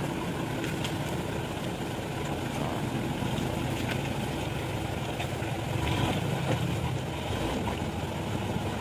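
Diesel truck engine running with a steady low rumble as the loaded truck crawls forward through slippery mud.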